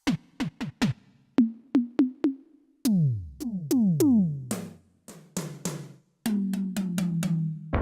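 Electronic drum-kit sounds played on a Roland F-140R digital piano. First come separate sharp hits, then about five electronic tom strokes whose pitch drops steeply after each one, then a quicker run of hits over a held low tone.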